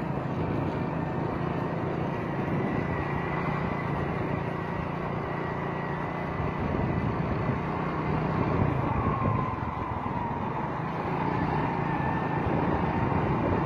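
A vehicle's engine running steadily, with road noise from driving along a dirt track.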